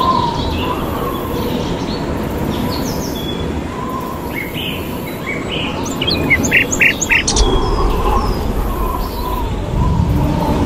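Several birds chirping and calling in short, quick notes, busiest about two thirds of the way through, over a steady low rushing background of outdoor ambience.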